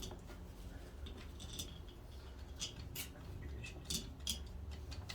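Faint, scattered light clicks and clinks of small metal bolts being handled and set back into a removed transmission part, about half a dozen over a few seconds.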